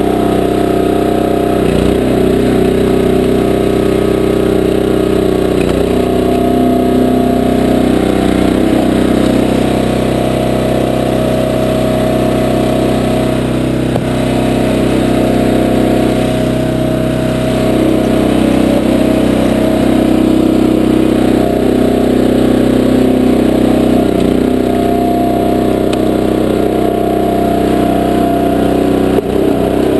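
Small gasoline engine of a 20-ton Powerhorse horizontal log splitter running steadily, its note shifting a little now and then.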